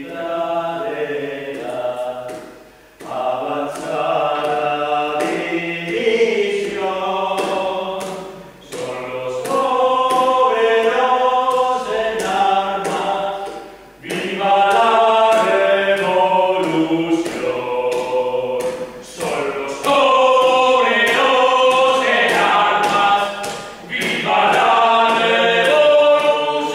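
A group of voices singing together without instruments, a song in phrases of about five seconds with short breaths between them.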